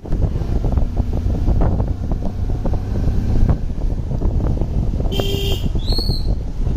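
Wind buffeting the microphone over a low, steady vehicle rumble during a ride. About five seconds in there is a short horn-like toot, followed by a brief high rising whistle.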